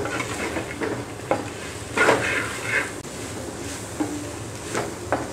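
Sliced onions and shallots sizzling in oil in an earthenware pot, being sautéed until soft, with a spatula stirring them in several irregular strokes against the clay.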